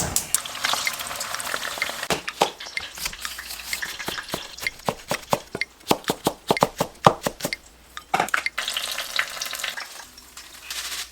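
Food frying in oil in a pan with a steady sizzle, stirred throughout, the utensil clicking and scraping against the pan many times.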